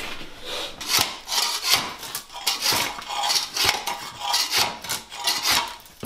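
Long-handled floor scraper scraping and prying wooden carpet tack strips off a bare concrete floor along a baseboard, in rough rasping strokes about twice a second.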